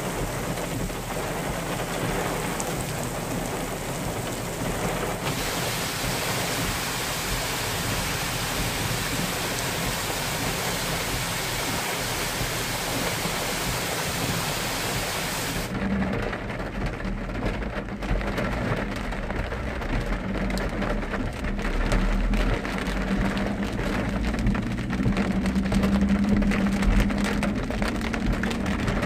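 Steady hiss of heavy rain, which turns into a louder, closer rush about five seconds in as runoff water pours down a rock face. About sixteen seconds in the sound becomes muffled, with a low hum: a car driving on the wet road, heard from inside.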